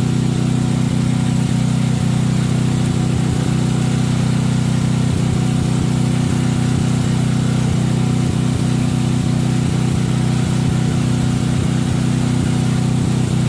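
An engine running steadily at one constant speed, loud and unchanging throughout.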